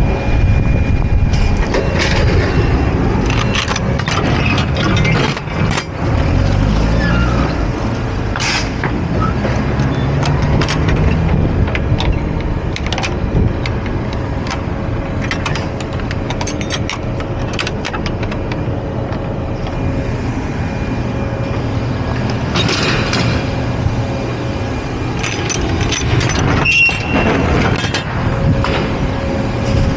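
Semi truck's diesel engine running, its pitch climbing in steps a few seconds in as the engine revs up, with scattered clicks and rattles.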